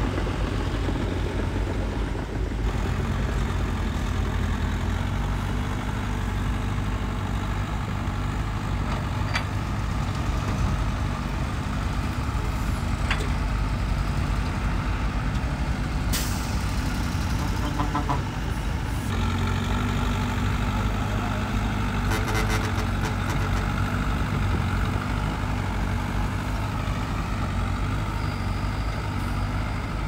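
Heavy diesel engines of earthmoving machinery running steadily, with a few short sharp clicks or clanks; about two-thirds of the way through, the engine note gets louder.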